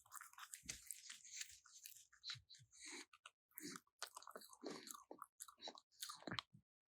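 Pet raccoon making quiet, irregular wet mouth clicks and smacks, like chewing or lip-smacking in its sleep.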